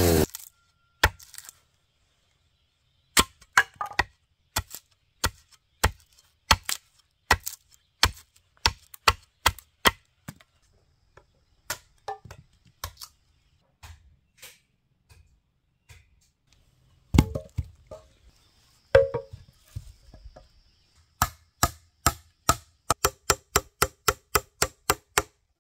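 Hatchet chopping a piece of wood in sharp, separate strokes, about one a second, with a few heavier blows past the middle. Near the end a hammer drives a nail into timber with quicker blows, about three to four a second, each with a slight ring.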